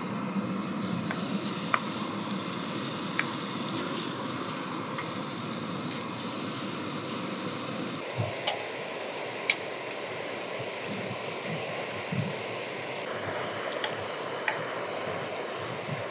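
Chopped bacon sizzling in a nonstick frying pan on a propane camp stove, a steady hiss stirred with tongs and a spatula, with a few sharp clicks.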